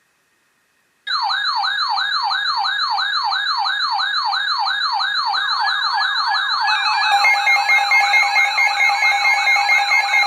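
Electronic siren-style alert tone, ahead of an emergency weather warning. Starts abruptly about a second in as a fast run of rising sweeps, about five a second. From about seven seconds in, a steady tone and rapid high beeps are layered on top.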